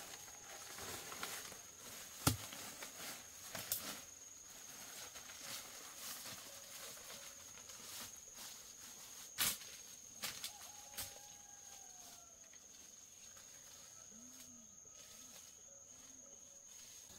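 Scattered sharp knocks over a steady high-pitched tone, with a few faint short calls in the second half.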